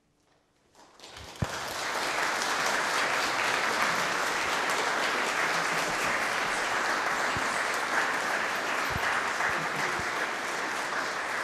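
Audience applauding: the clapping starts out of near silence about a second in, builds quickly and then holds steady.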